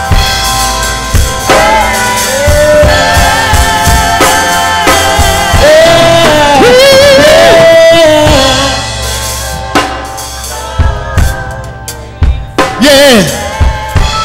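Live gospel music: a singer holds and bends long notes with vibrato over a drum kit with snare and bass drum. About nine seconds in, the music thins out, leaving mostly drum hits and a short falling vocal swoop.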